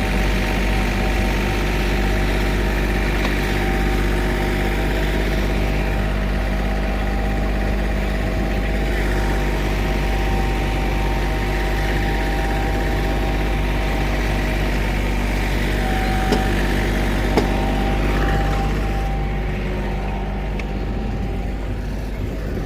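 Heavy diesel engine of asphalt-paving equipment running at a steady speed, with two short knocks about two-thirds of the way through; it gets slightly quieter near the end.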